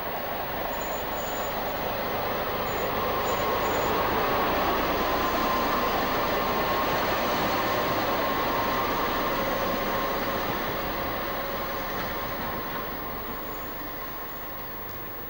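RENFE series 304 diesel shunting locomotive passing close by: its engine and running gear grow louder, are loudest about four to nine seconds in, then fade as it moves away. A faint steady whine runs through the middle of the pass.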